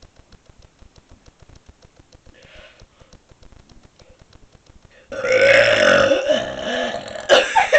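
A woman burping: one long, loud burp starts about five seconds in and lasts about two seconds, with another loud burst near the end.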